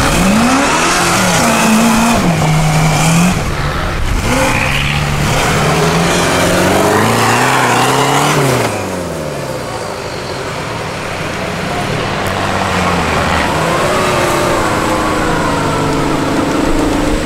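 Engines of off-road competition vehicles revving hard and repeatedly while climbing a steep sandy bank, their pitch rising and falling. One long climb in revs drops off sharply about halfway through.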